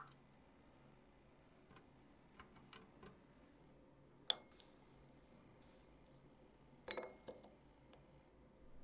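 Metal spoon scooping salt in a ceramic dish: a few light clicks and scrapes, with sharper clinks about four seconds in and about seven seconds in.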